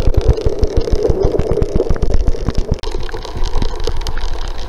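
Water and leaf debris swirling through a suction pool cleaner's cyclonic leaf canister, heard underwater as a loud, muffled rush with rapid, irregular low knocking.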